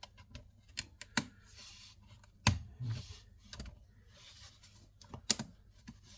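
Irregular sharp clicks and knocks of a screwdriver and a plastic wall socket being prised out of the plaster, with short scrapes in between; the loudest knocks come about two and a half and five seconds in.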